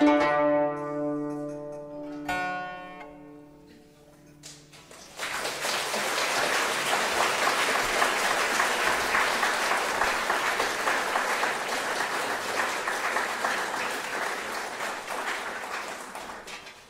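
A guzheng ensemble plays its closing plucked chords: one at the start and a last one a little over two seconds in, both left to ring and die away. About five seconds in, the audience starts applauding, and the applause fades near the end.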